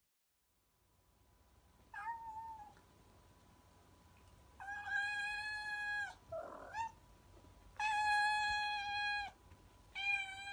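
A cat meowing. A short meow comes about two seconds in, followed by long, steady-pitched meows about every three seconds, with a brief rougher chirp between two of them.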